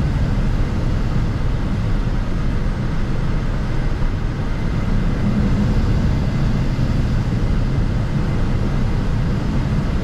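Steady flight-deck noise of a Gulfstream G650 in flight on approach: an even, loud, low-pitched noise that does not change.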